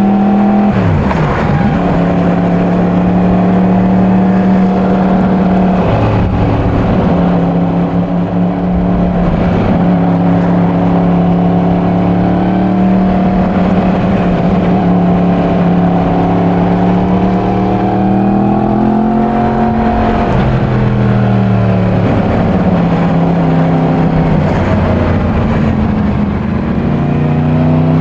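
Yamaha MT-10's crossplane inline-four running through its stock exhaust while the bike is ridden, with the engine kept at moderate revs during running-in. Its pitch drops sharply about a second in, then holds fairly steady. It rises and falls again around two-thirds of the way through and dips and climbs near the end, as with gear changes and throttle changes.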